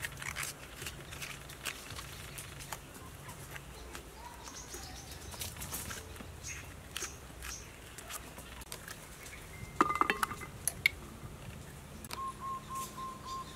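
A spoon and a small knife scraping and cutting a white bitter gourd by hand, making small scraping clicks, with a denser cluster of sharper clicks about ten seconds in. Birds chirp in the background, with a quick run of repeated notes near the end.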